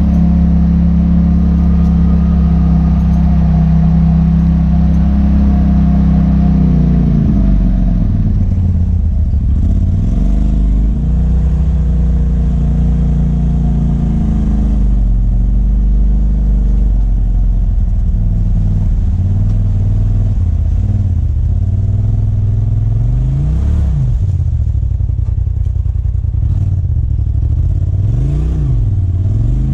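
Polaris RZR side-by-side engine running at a steady pitch, then easing off about seven seconds in. It picks up and falls back in short revs a couple of times near the end.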